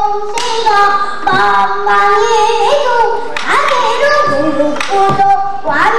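A young girl singing pansori solo, holding notes with a wide wavering vibrato and sliding up into new phrases, with a few sharp knocks between phrases.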